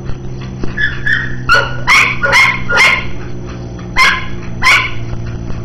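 Dog barking and yipping in short, excited calls while chasing a flirt-pole lure: a quick run of about six in the first three seconds, then two more after a pause, over a steady low hum.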